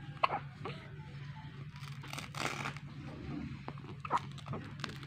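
Soft rustling and crinkling with a few short clicks, over a steady low hum.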